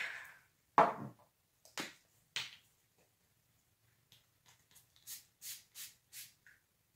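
A few knocks and clicks of makeup products being handled, then four quick hissing spritzes of a setting-spray mist pump about five seconds in.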